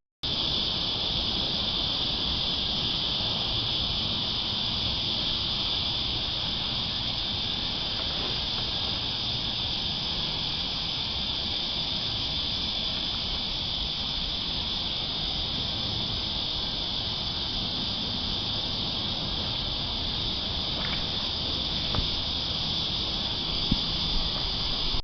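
Cicadas chorusing: a steady, high, even buzz that never lets up, with a few faint knocks near the end.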